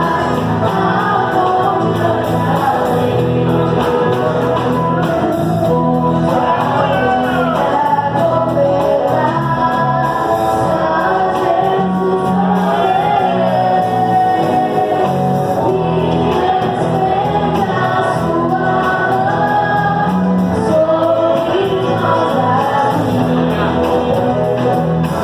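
Worship song: singing over instrumental backing with a steady bass line.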